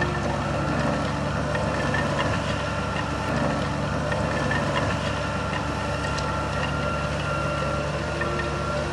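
Heavy diesel engine of earthmoving machinery running steadily at low revs, with a few faint clicks over it.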